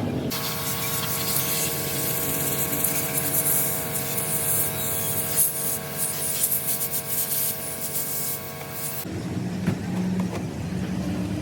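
High-pressure spray hissing steadily, with a steady whine under it. It starts abruptly just after the start and cuts off sharply about nine seconds in.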